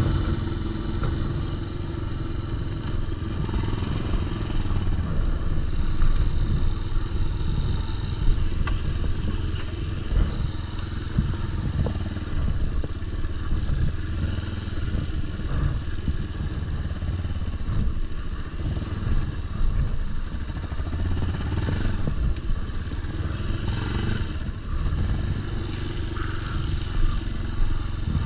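Yamaha SR150 motorcycle's small single-cylinder engine running steadily, heard from the saddle.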